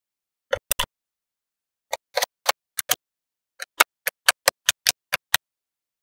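Small magnetic balls clicking and snapping together as slabs of them are pressed onto a wall built of the same balls: a quick, irregular series of sharp clicks, coming faster in the second half.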